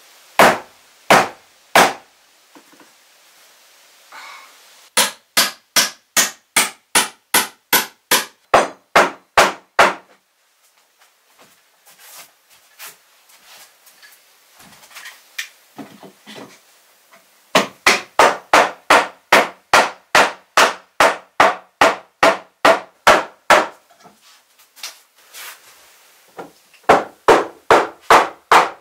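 A hammer driving nails into wooden floorboards: runs of sharp, evenly spaced blows at about three a second, broken by pauses of several seconds.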